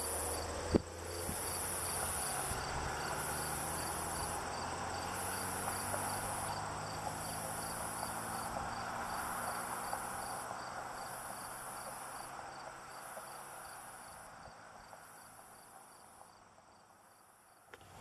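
Insects calling from the field, a high buzz that repeats about every two seconds over a faint, fast ticking trill. There is one sharp click about a second in, and the background hiss fades toward the end.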